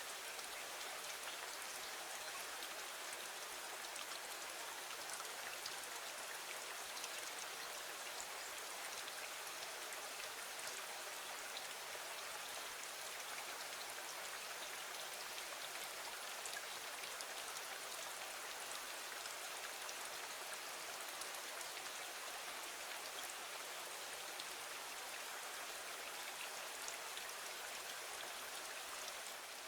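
Steady rain falling on a window: an even hiss with a dense patter of fine drop ticks.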